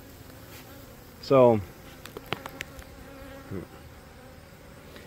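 Honeybees buzzing around a hive entrance, a steady hum. About a second and a half in, a person makes one short vocal sound with falling pitch, followed by a few light clicks.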